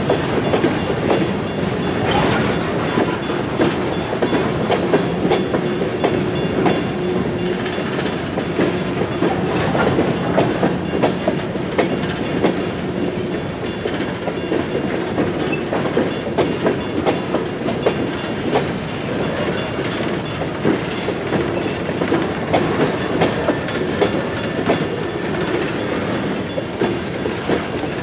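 Coal train of open-top hopper cars rolling steadily past at a grade crossing: continuous wheel-on-rail rumble with irregular clacking of the wheels on the track.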